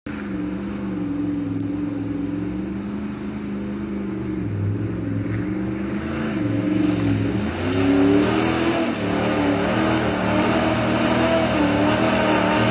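Old Toyota RAV4's engine running and revving, its note dipping and then climbing sharply about six to eight seconds in, louder in the second half.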